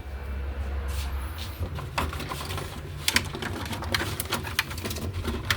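Irregular light clicks and knocks of food packages and containers being taken out of a refrigerator and handled, over a steady low hum.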